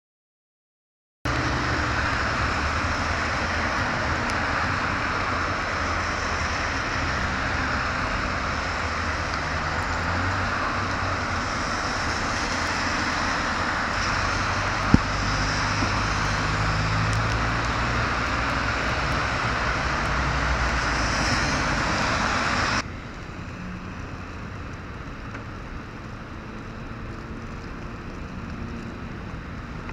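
Steady road traffic noise, vehicles running and passing on snowy roads, with one sharp click midway; it drops to a quieter street ambience about 23 seconds in.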